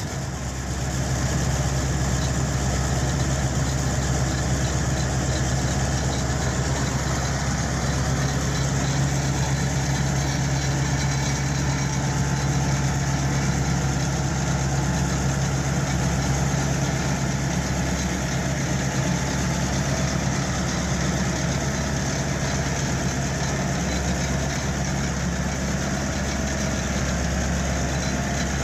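New Holland TR96 combine's diesel engine idling steadily.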